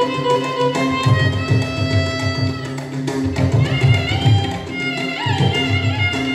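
Carnatic devotional music: a violin playing a gliding, ornamented melody over a steady drone from an electronic shruti box, with mridangam strokes beneath.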